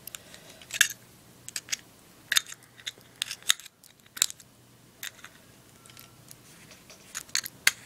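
Irregular small clicks and scrapes of hands and tools working a Zippo lighter's metal insert while a rayon cotton ball is stuffed into it.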